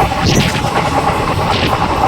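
Passenger train coach running on the line, heard from on board: a steady loud rumble and rattle, with sharp clattering knocks about a third of a second in and again near the end.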